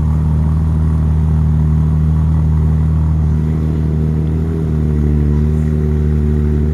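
Ferrari engine idling steadily, a loud, even low drone.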